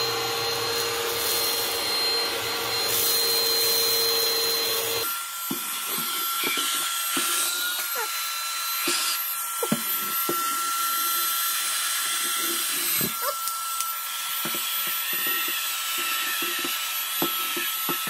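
Eufy HomeVac H11 Pure handheld vacuum cleaner running steadily. About five seconds in, its sound changes to a higher whine. From then on, uncooked rice grains rattle and click as they are sucked up the nozzle.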